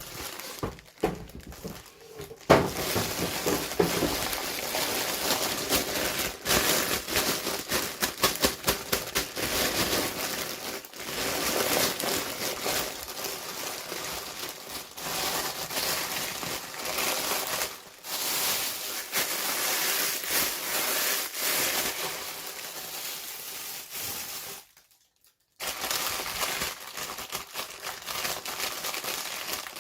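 Plastic toy packaging crinkling and crackling as it is handled and opened, with many small clicks and taps. It cuts out for about a second near the end.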